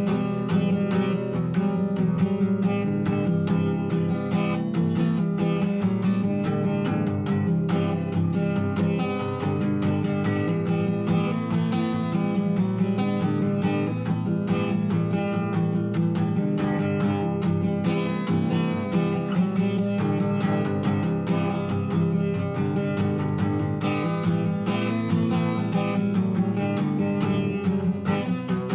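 Acoustic guitar playing strummed chords, with a dense, even run of strokes.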